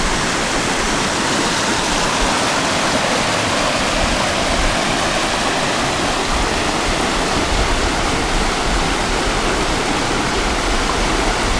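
The Virgin River rushing and splashing over a shallow rocky riffle: a steady, unbroken water sound.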